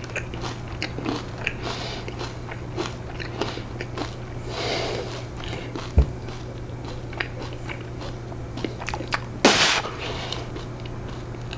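A person crunching and chewing a mouthful of thick bran cereal flakes in milk, with many small crunches throughout. A dull thump comes about six seconds in and a short loud hiss a few seconds later.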